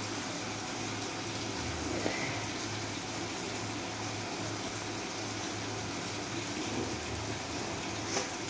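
Steady rushing hiss with a low hum underneath, and a light knock near the end.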